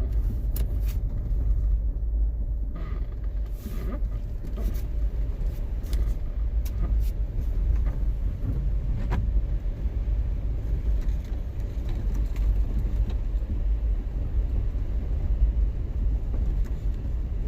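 Car driving slowly: a steady low rumble of engine and tyres, with a few light clicks scattered through it.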